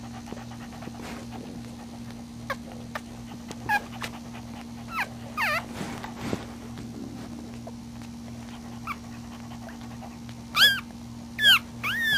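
Newborn puppies squeaking and whimpering: short high squeaks that rise and fall in pitch, a few scattered through the first half and the loudest three close together near the end. A steady low hum runs underneath.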